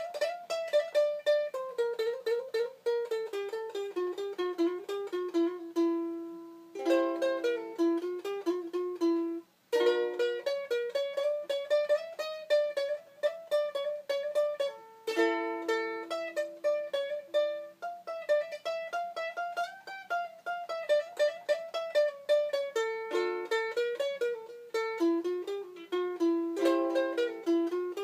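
3D-printed ukulele played solo: a quick picked melody with several spells of ringing chords, and a brief break a little under ten seconds in.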